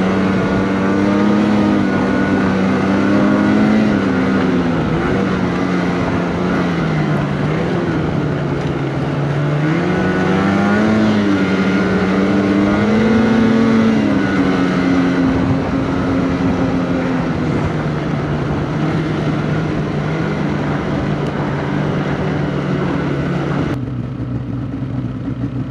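Polaris 850 Patriot two-stroke twin snowmobile engine running at trail speed, its pitch rising and falling with the throttle. About two seconds before the end it changes abruptly to a lower, steady idle.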